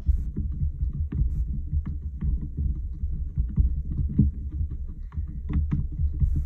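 Fingers pressing and rubbing paint through a perforated dot stencil onto a card on the tabletop, heard as an uneven low rumble with light taps and scuffs.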